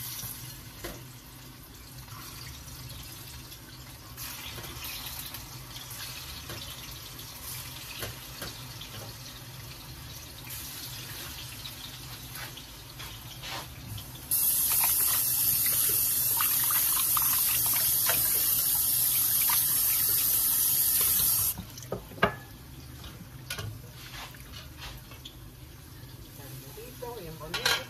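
Kitchen tap running steadily for about seven seconds in the middle, starting and cutting off abruptly. Around it, quiet kitchen background with a few sharp clicks and knocks of cookware, the loudest just after the tap stops.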